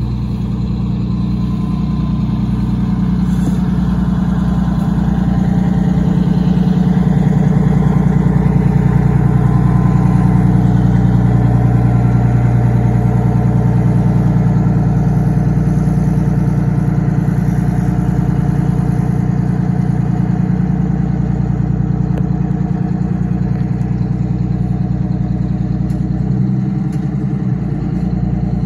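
Old coach bus engine running steadily at low speed: a deep, evenly pulsing rumble that swells slightly a few seconds in and shifts near the end.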